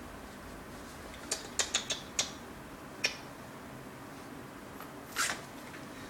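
A quick run of about five small sharp clicks, a single click a second later, and a short crinkle near the end: puppies' claws and paws on plastic-backed pee pads.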